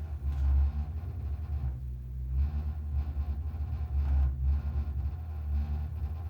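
Boiler giving off a deep, continuous rumble that swells and eases every second or two.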